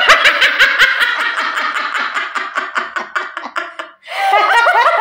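People laughing hard in quick, repeated bursts, breaking off briefly about four seconds in and then starting up again.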